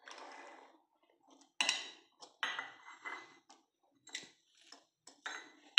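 Metal wire whisk stirring custard in a glass bowl, clinking against the glass about half a dozen times, each clink ringing briefly.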